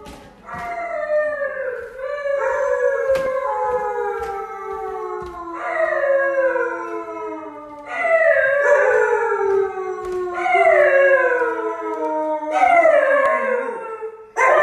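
Dogs, a husky among them, howling: long howls that slide down in pitch, one after another and overlapping.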